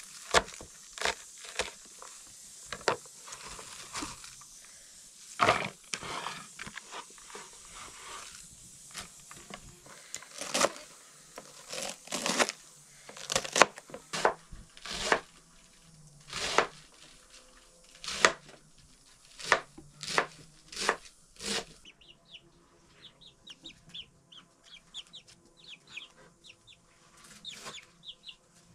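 Kitchen knife chopping cabbage on a board in irregular, sharp strokes. About three quarters of the way through the chopping stops, and young chickens give faint, quick calls.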